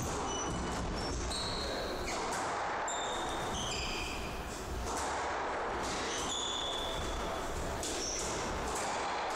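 Squash being played: the ball knocking sharply off racquets and the court walls, with shoes squeaking on the wooden floor. There is a short lull about four seconds in before play resumes.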